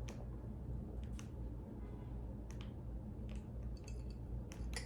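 Person chewing crunchy potato chips with the mouth close to the microphone: scattered faint crunches and mouth clicks over a low room hum.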